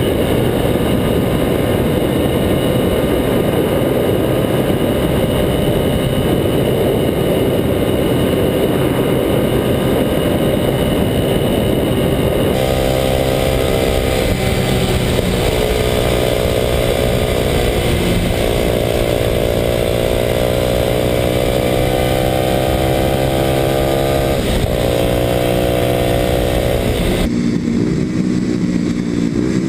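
Kawasaki KLX250SF's single-cylinder four-stroke engine running through a Muzzy aftermarket exhaust as the bike rides along, with steady wind rush. The engine note climbs gently a few times and dips briefly in between.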